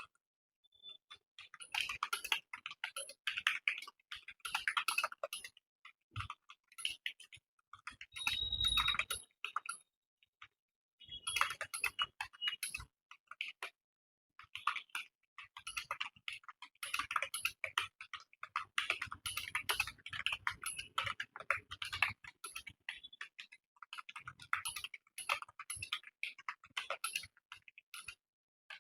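Fast typing on a computer keyboard: rapid runs of key clicks, broken now and then by pauses of about a second.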